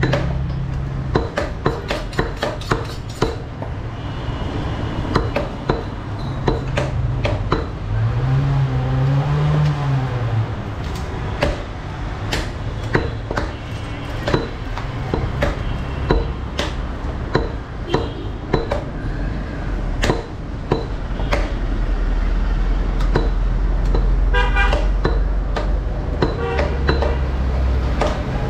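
Heavy butcher's knife chopping beef on a wooden log chopping block, sharp knocks at irregular intervals, one to two a second. Traffic is heard behind it: a low vehicle horn sounds twice in the first half, and a low engine rumble sets in for the second half.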